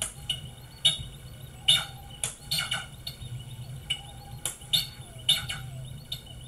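DIY synthesizer making short, irregular bird-like chirps and blips, about one or two a second, over a steady low drone with a wavering tone beneath.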